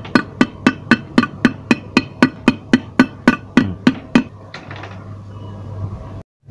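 Rapid, even light hammer taps, about five a second, seating a 6302 ball bearing into the gearbox end casing of a Piaggio Ape BS2 engine, each tap with a short metallic ring. The tapping stops a little after four seconds in, and a cloth rubs softly over the casing.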